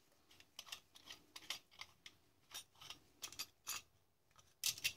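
Faint, irregular clicks and taps of brass plumbing fittings being handled and fitted together by gloved hands: a brass tee, a union nut and a plastic pipe. The loudest knocks come near the end.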